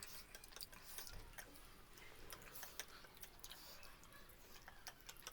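Faint, irregular little clicks and smacks of eating at close to silence: mouth and utensil sounds of noodles and pork feet being eaten.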